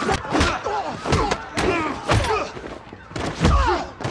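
Film fight-scene sound: a rapid run of punch and body-impact hits, about two a second, with grunts of effort. The heaviest hit comes about three and a half seconds in.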